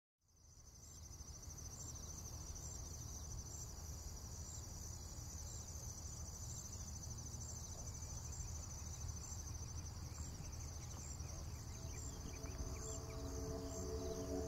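A steady high-pitched cricket-like trill with a faint regular ticking, over a low rumble, fading in at the start. Soft synthesizer music comes in near the end.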